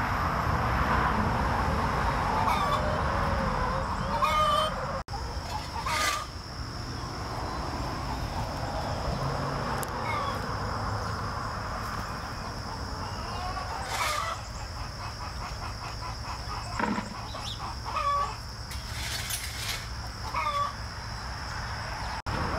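A flock of hens clucking, with short, repeated calls every few seconds.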